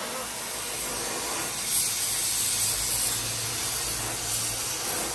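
Welding torch hissing steadily as a crack in an aluminium alloy wheel rim is welded with a filler rod.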